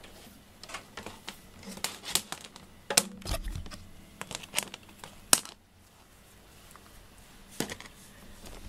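Handling noises as cables are moved about on a wooden floor: irregular clicks, rustles and knocks, with two sharper knocks about three and five seconds in, then a quieter stretch.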